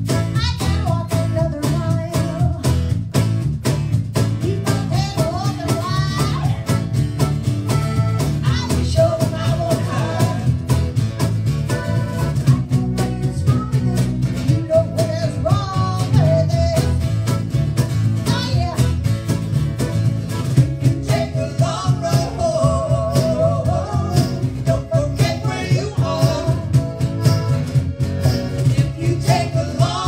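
Live band playing a song: accordion, acoustic guitar and electric bass over a steady cajon beat.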